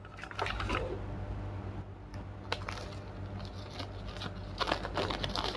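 Handling noise: scattered light scrapes, clicks and rustles as objects and the recording camera are moved about by hand, over a steady low electrical hum.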